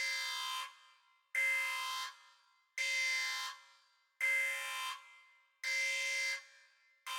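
An alarm-like buzzing tone in repeated blasts, each starting abruptly, lasting under a second and fading off, about one every second and a half.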